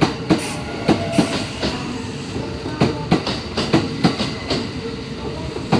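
Train wheels knocking over rail joints and station points, a quick, irregular series of sharp clacks over the steady running noise of the train moving at low speed.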